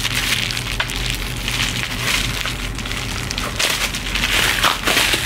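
Plastic shrink wrap crinkling and crackling as it is pulled and peeled off a palette box by hand, with many small snaps.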